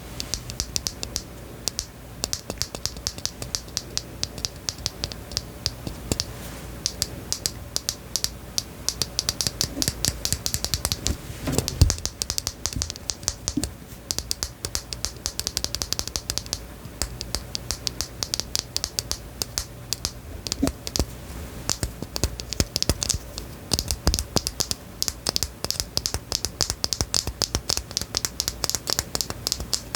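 Rapid, irregular light clicks and taps, like typing on a keyboard, with a single louder knock about twelve seconds in.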